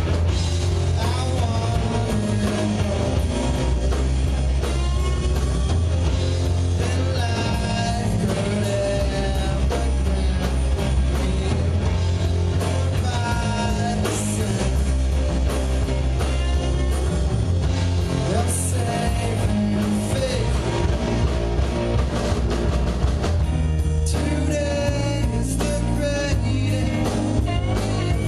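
A rock band playing live: electric guitar, bass and drums with a singer's voice over them.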